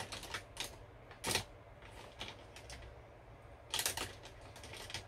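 Scattered light clicks and taps of makeup items being handled, with a louder tap about a second in and a quick cluster of clicks near four seconds.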